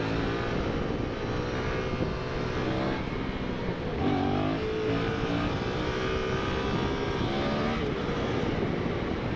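Yamaha MT-07 parallel-twin engine running on the move, with wind rush. About four seconds in, its pitch dips and then climbs again.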